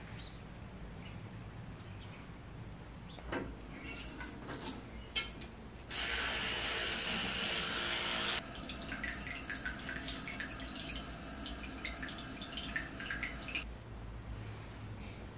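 Bathroom washbasin tap running into the basin. It comes on strongly about six seconds in, then runs lower with small clatters until it shuts off near the end. Scattered knocks and clicks come before it.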